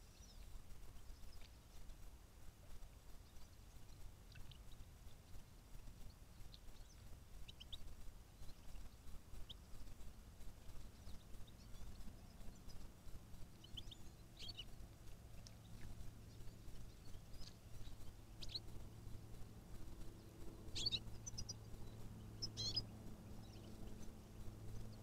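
Faint, scattered high-pitched chirps of small birds, sparse at first and more frequent in the second half, over a low steady hum that comes up about halfway through.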